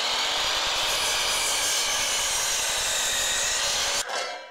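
DeWalt DWS779 12-inch sliding compound miter saw running at full speed, its 60-tooth blade cutting through a 4x4. The saw's sound holds steady, then stops suddenly near the end.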